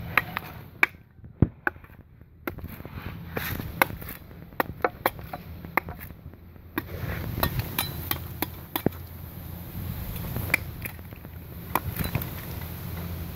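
A knife blade chopping and scraping into the rotten wood of a tree trunk: a run of irregular sharp knocks mixed with scraping.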